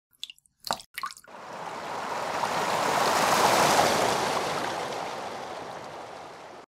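Water sound effect: a few short drips, then a rush of swirling water that swells to a peak about halfway through, fades, and cuts off suddenly near the end.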